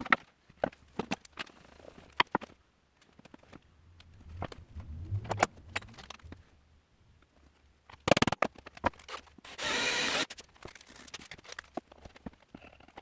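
Scattered clicks and knocks of parts and tools being handled, with a short rumble about four seconds in and a steady burst of noise lasting about a second near ten seconds in.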